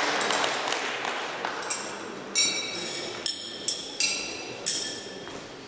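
Throwing knives striking wooden targets: about five sharp knocks in quick, uneven succession past the middle, each with a short metallic ring from the blade. A low murmur of voices sits underneath.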